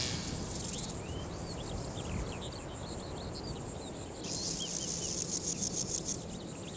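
Male grasshopper stridulating: it rubs the row of pegs on its hind legs against its body, scraping out a dry, high-pitched rasping song. The rasping grows louder and pulses from about four seconds in, for about two seconds.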